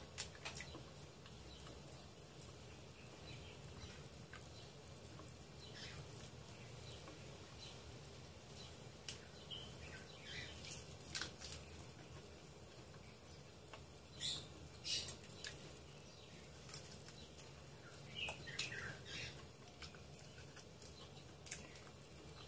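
Quiet eating sounds from chewing and sucking on chicken feet: scattered short wet smacks and clicks of lips and mouth, coming in small clusters, over a faint steady background hum.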